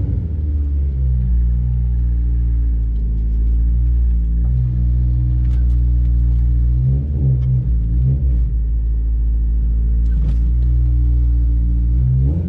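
Car engine running steadily with a deep low rumble, wavering briefly about halfway through.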